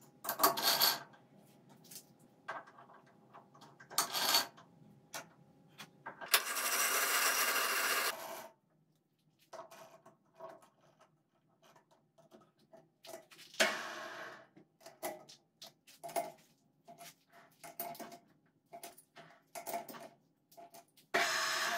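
Steel lathe chuck jaws and chuck key being handled as a workpiece is mounted in a three-jaw chuck: separate metal clinks and clanks, a scraping rattle of about two seconds about six seconds in, then a long run of light ringing metal clicks as the jaws are tightened with the key.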